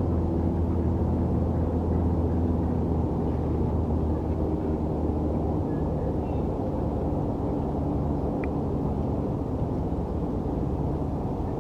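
Steady low drone of distant city engine noise, its humming tones fading about halfway through. A couple of faint, brief bird chirps sound above it.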